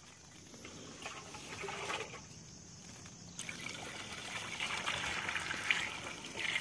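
Water poured from a plastic dipper into the plastic tank of a Solo 425 knapsack sprayer, filling it: a short pour, a brief pause, then a longer, louder pour from about halfway.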